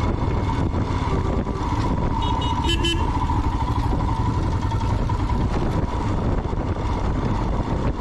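Motorcycle riding along the road, a steady low rumble of wind and engine, with a brief vehicle horn toot a little under three seconds in.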